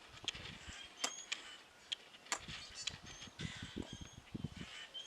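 Faint scattered clicks and handling noises, with a few short, high, thin chirps and soft low bumps in the second half.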